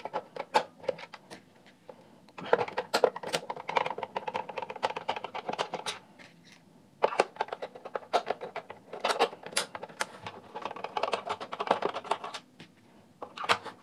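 A hand screwdriver turning screws out of the plastic back case of a Philips RM210 cassette recorder. It makes scratchy grinding in two long spells, with scattered clicks and knocks of the plastic housing being handled.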